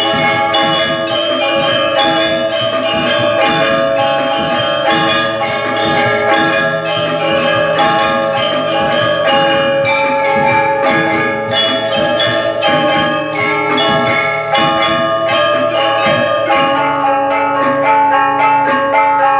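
Ensemble music played on tuned, struck metal percussion: bell-like notes ringing over a fast, steady rhythm of strikes.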